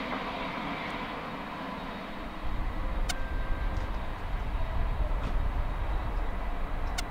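Boeing 767-300 jet engines running as the airliner rolls out on the runway after landing: a steady jet whine, joined by a louder low rumble about two and a half seconds in. Two sharp clicks, one near the middle and one near the end.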